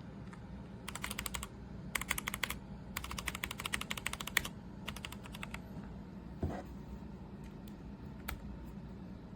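Typing on a Redragon K556 mechanical keyboard with tactile brown switches: four quick bursts of key clicks, then a few scattered single keystrokes and one duller knock about six and a half seconds in.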